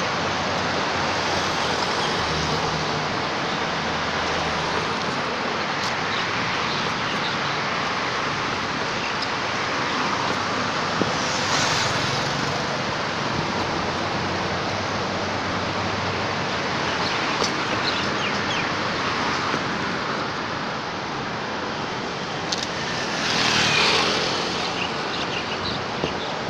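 Road traffic going by: a steady hiss of tyres and engines, with passing vehicles swelling louder about halfway through and again near the end.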